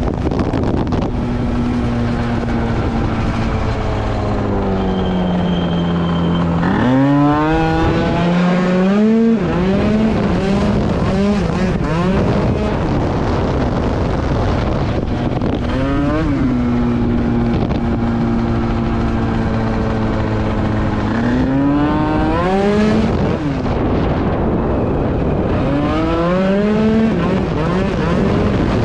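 Tuned two-stroke scooter engine under way, holding a steady pitch, then revving up sharply and dropping back several times as it accelerates.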